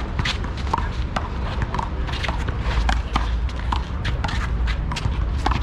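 One-wall handball rally: the ball slapping off hands and the wall amid running feet, with rubber sneaker soles scuffing and squeaking on the court. Many sharp hits and short squeaks come in quick, irregular succession over a steady low rumble.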